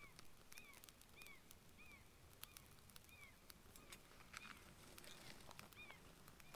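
A bird calling over and over, faint short arched notes about two a second, with scattered soft clicks.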